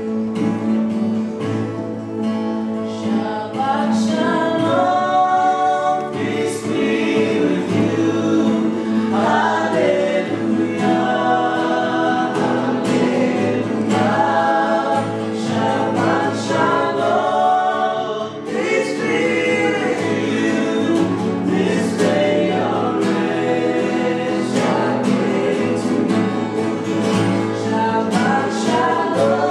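Gospel worship music: a choir of voices singing a slow melody over sustained instrumental accompaniment.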